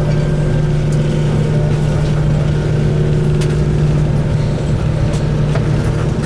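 Enoden electric train running as it approaches its Fujisawa terminus, heard from on board: a loud, steady low hum with a thin high whine above it and a few light clicks.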